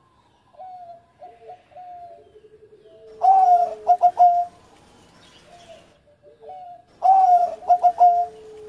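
Zebra dove (perkutut) cooing its song. Twice, about three seconds in and again near the end, it gives a loud phrase: a held note followed by a few quick, clipped notes. Softer cooing phrases come before and between.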